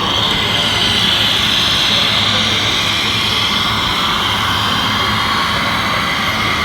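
Radio-controlled model construction machinery running, a steady high-pitched motor whine with a rumbling undertone.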